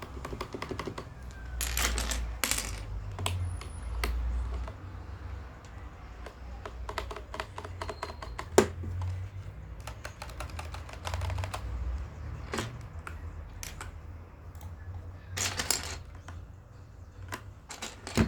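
Plastic keycaps clicking and rattling as they are handled and pressed onto a mechanical keyboard's switches, in scattered clusters, with one sharp, louder click about eight and a half seconds in.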